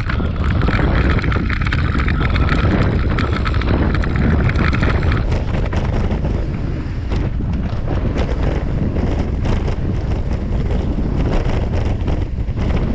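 Mountain bike descending loose gravel singletrack at speed: wind buffeting the microphone over the tyres crunching on stones and the bike rattling over rocks.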